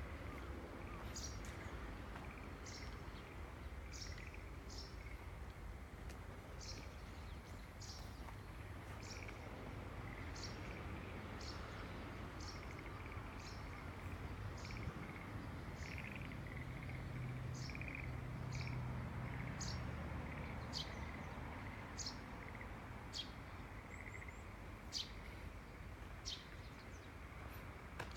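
A bird calling repeatedly, short high chirps about once a second, over a steady low outdoor rumble.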